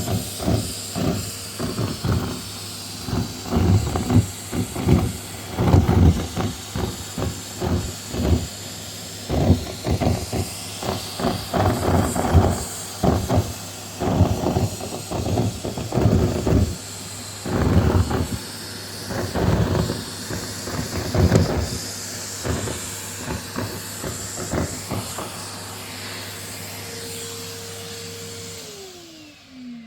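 Vacuum cleaner running steadily, sucking up small scraps that clatter and rattle through the nozzle in quick, irregular runs. Near the end the motor is switched off and its whine falls in pitch as it winds down.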